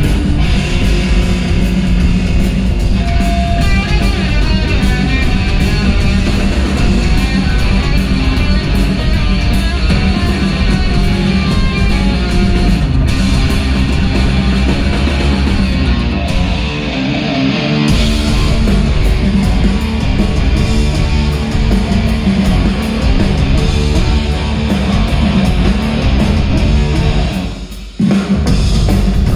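Rock band playing live, loud distorted electric guitar to the fore over bass and drums. The lowest end thins out for a moment just past halfway, and near the end the sound dips briefly before the full band comes back in at once.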